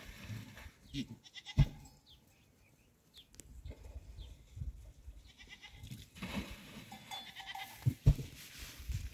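A herd of goats bleating, several calls overlapping, with a couple of sharp knocks about a second and a half in and again near the end.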